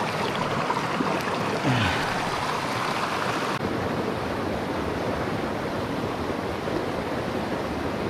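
Small mountain stream rushing and burbling over rocks: a steady wash of running water. The sound turns slightly duller about three and a half seconds in.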